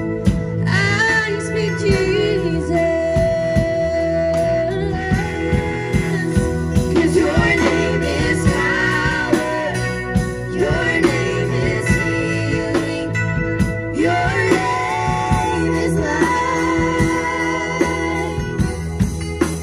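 Live band playing a song: girls' voices singing into microphones over a Nord Electro keyboard, electric bass guitar and drum kit, with one long held sung note about three seconds in.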